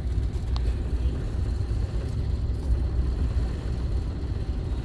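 Steady low rumble heard from inside a large ferry's lounge in storm-force wind, with a faint high steady whine over it.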